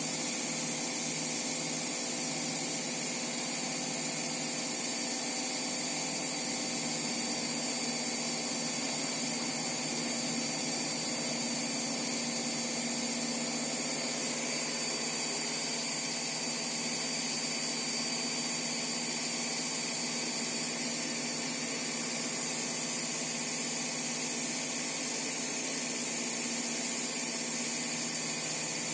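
Washing machine running: a steady mechanical whir with a constant hum and a thin high whine over it.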